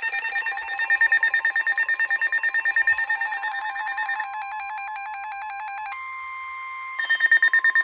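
Electronic emergency alert tones. A rapid ringing trill changes about four seconds in to tones flipping quickly between two pitches, then holds a steady tone for about a second before the trill returns near the end.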